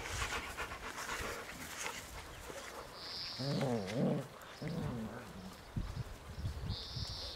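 Bouvier des Flandres vocalising in play: a short wavering growl-like call that rises and falls about halfway through, followed by a shorter one.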